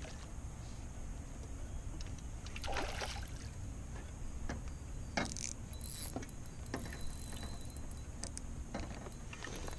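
Steady low rumble of wind and water around a small fishing boat, with scattered light clicks from a spinning reel and rod handling, and a brief splash about three seconds in.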